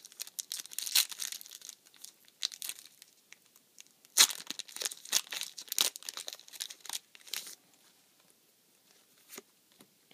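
A foil Yu-Gi-Oh! Duelist Pack booster wrapper being torn open and crinkled in the hands, in irregular bursts for about seven and a half seconds. After that only a few faint handling clicks.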